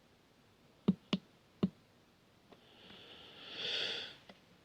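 Three light clicks of small parts being handled, then a soft breath or sniff lasting about a second.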